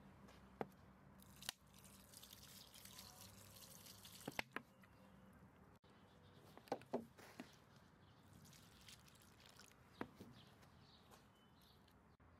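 Faint drips and small splashes of liquid fertilizer poured from a bottle onto loose soil, a handful of sharp ticks scattered over a soft trickling hiss.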